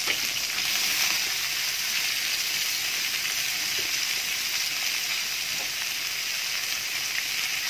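Sliced onions sizzling in hot frying oil in a pan, a steady hiss, with a few light scrapes as they are stirred.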